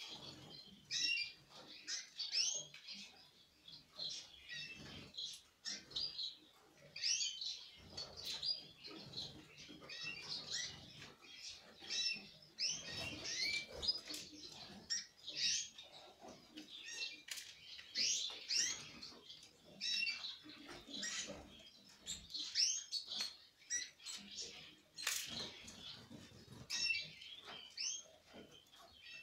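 A flock of domestic canaries chirping: short, high calls from several birds overlapping almost without pause.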